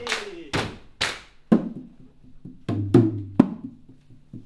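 Body-percussion rhythm: sharp slaps and hollow, wood-block-like knocks. Three evenly spaced strikes come first, then a short gap, then a quicker cluster about three seconds in.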